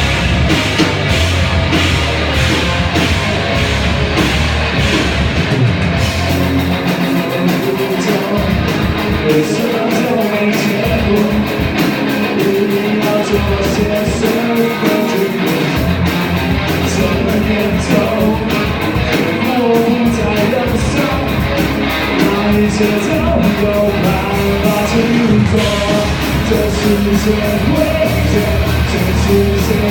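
Rock band playing a song live at full volume, with singing over drums and guitars.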